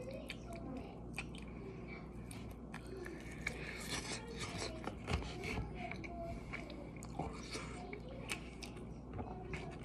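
A person faintly chewing a breaded chicken wing, with many small wet mouth clicks and smacks.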